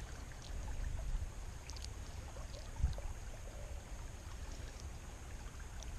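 Quiet creekside background: a steady low rumble with a few faint clicks and one soft thump a little before three seconds in, handling noise from hands working a hook out of a small fish.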